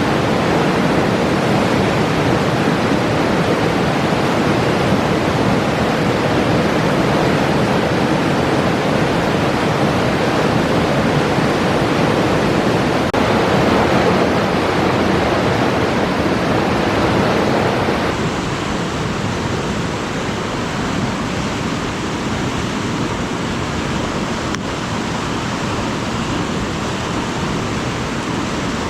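Alpine river flowing: a steady rush of water. About two-thirds of the way through, the rush changes abruptly to a slightly quieter, thinner sound.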